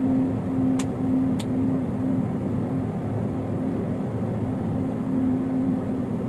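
Heavy engine running steadily, a constant noisy drone with a low hum, and two sharp clicks about a second in.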